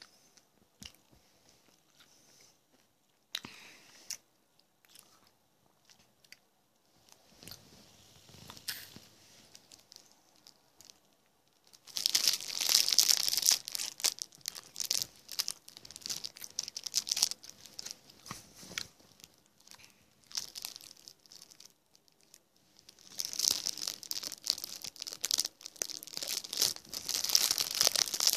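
Clear plastic brownie wrapper crinkling loudly in two long stretches, the first starting about twelve seconds in and the second near the end. Faint chewing can be heard in the quieter stretch before.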